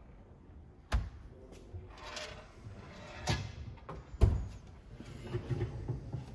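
Integrated fridge door with a cabinet front being swung and shut. There is a knock about a second in, another just after three seconds and the loudest thud a little after four seconds, with rustling handling noise between.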